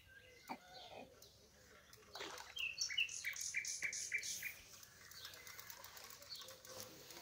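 A small bird chirping: a quick run of short, evenly spaced high notes about two seconds in, lasting a couple of seconds, over faint outdoor background.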